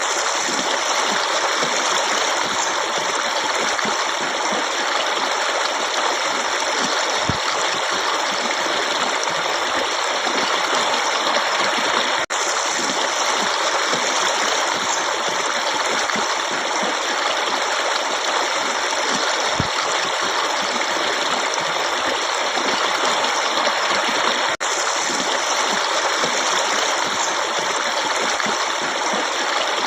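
Running water in a forest stream: a steady, unbroken rush of flowing water, cutting out for an instant twice, about twelve seconds apart.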